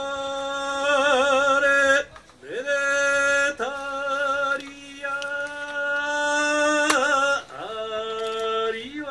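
Kiyari, the Japanese work-song chant, sung by a single male voice: long held high notes with wavering ornaments, in several drawn-out phrases with short breaths between, the last ending in a rising slide.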